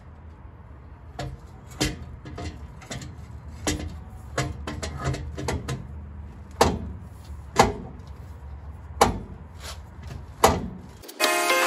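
Metal tubular exhaust header knocking and clanking against the engine as it is worked into place by hand: a run of irregular knocks, the loudest four in the second half. Music starts abruptly near the end.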